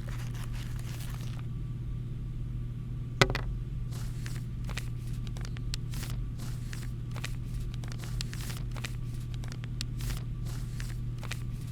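Light irregular clicks and taps from handling the unboxed mouse and its packaging, with one sharper click about three seconds in, over a steady low hum.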